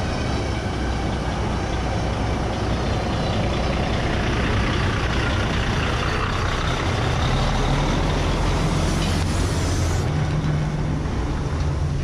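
Semi truck's diesel engine running as the grain truck pulls up to the loadout bin, with a hiss that cuts off suddenly about ten seconds in.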